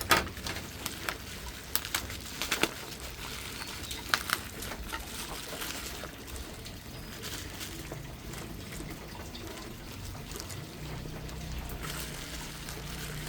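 Plastic packaging being handled and opened by hand: a few sharp clicks and crinkles in the first few seconds, then soft, steady rustling with scattered small ticks.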